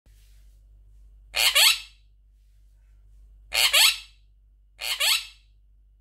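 Monk parakeet (Quaker parrot) giving three short, loud two-syllable calls, its mimicked 'baby'.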